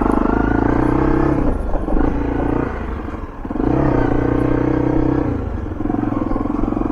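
Motorbike engine pulling under load over a rough, muddy road, the throttle held open in two long pulls with an easing-off of about a second between them, then a lighter pull near the end.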